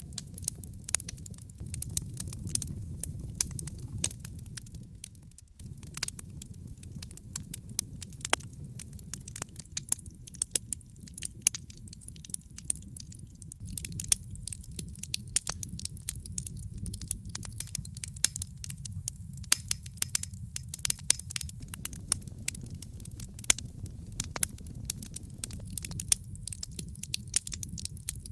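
Wood fire burning in a fireplace, with many sharp crackles and pops over a steady low rumble.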